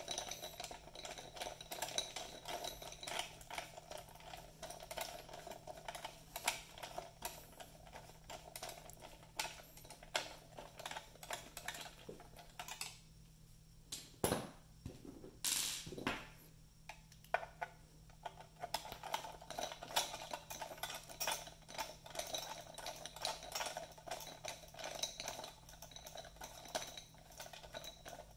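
T15 screwdriver backing screws out of a plastic monitor housing: a run of small quick clicks and scrapes of the tool turning and handling the plastic, with two louder knocks about halfway through.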